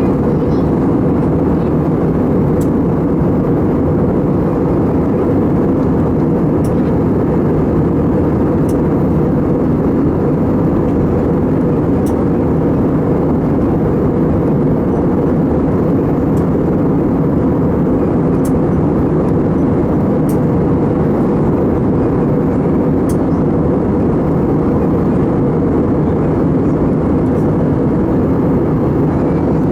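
Airbus A320 cabin noise in flight: a steady, even drone of engines and airflow heard from a passenger seat.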